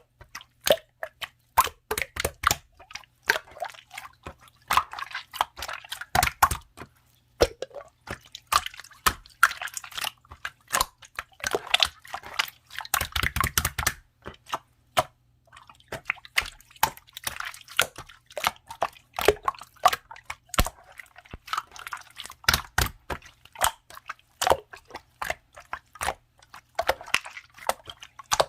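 Clear slime being pressed and stretched by hand, making irregular sharp sticky clicks and pops, with denser squishing runs about six seconds in and again around thirteen seconds.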